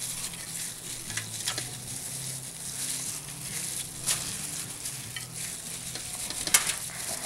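Soft rustling of a plastic bag and gloved hands as spice paste is smeared over a whole fish, with a few faint clicks over a steady low hum and hiss.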